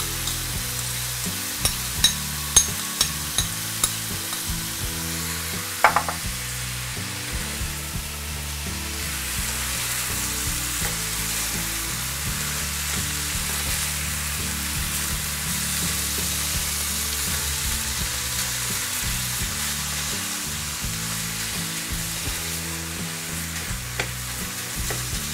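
Ground pork and chopped onion sizzling in a nonstick frying pan while being stirred and turned with a slotted spatula. A run of sharp clicks of the spatula on the pan comes about two to three seconds in, and a single knock about six seconds in.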